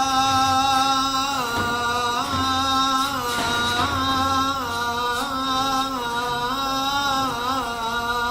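A man singing classical Arabic poetry, drawing out one long melismatic phrase. He holds each note and ornaments it with small turns of pitch, in the style of a sung qasida.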